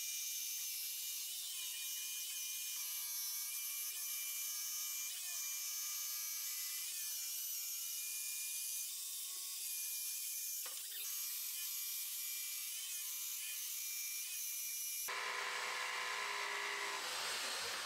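DeWalt jigsaw cutting a curve in a walnut board: a steady motor whine with a hissing blade, its pitch wavering slightly as the cut loads it. About three-quarters of the way through the sound turns abruptly rougher and fuller.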